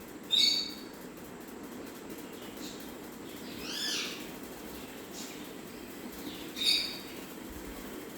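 Pet parrot calling: two short, loud, sharp calls about six seconds apart, with a softer call of rising-and-falling notes between them.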